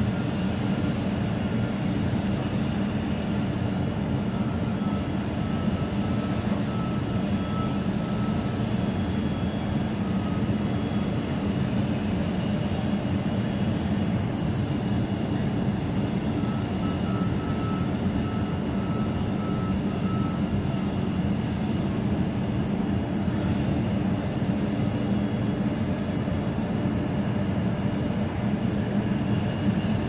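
Steady low industrial drone of a power generating station, even in level, with a faint thin high tone coming and going twice.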